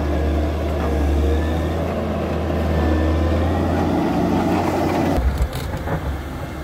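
Heavy earthmoving machine's diesel engine running with a steady low drone, which shifts about four seconds in; the sound changes abruptly a little after five seconds.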